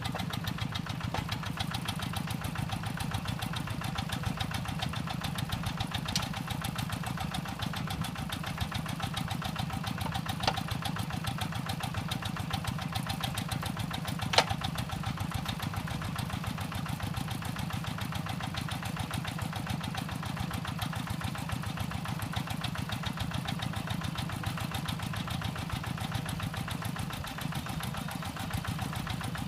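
Single-cylinder diesel engine of a two-wheel hand tractor running steadily with a rapid, even chugging beat. Three short sharp clicks or knocks stand out, the loudest about halfway through.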